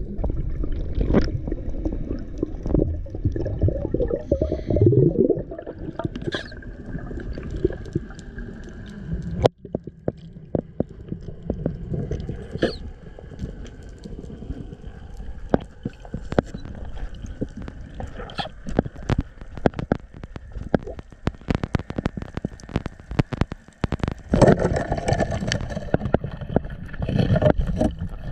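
Underwater sound picked up by a spearfisherman's camera: muffled water movement and bubbling, with many sharp clicks and crackles through the middle and the rumbling swell louder again near the end.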